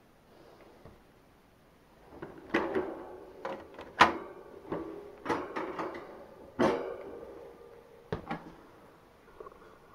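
Knocks and clatters of a wire mouse cage and a container being handled as they are set in place: a run of about a dozen sharp knocks with a short ring, starting about two seconds in and stopping near the end, the loudest about four seconds in.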